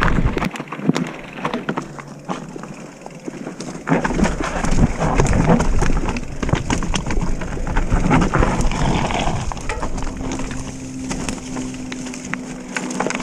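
Mountain bike rolling down a loose, rough singletrack descent: tyre crunch on dirt and a steady rattle of the bike, with heavy wind buffeting on the microphone from about four seconds in.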